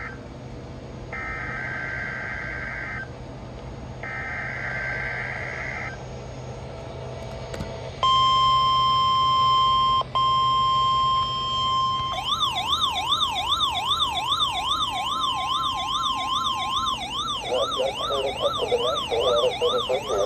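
NOAA Weather Radio test signal: the data header, a warbling two-tone digital burst, sent three times about two seconds each, then the steady 1050 Hz warning alarm tone. About twelve seconds in, an electronic siren tone rising and falling about twice a second joins and continues after the steady tone stops.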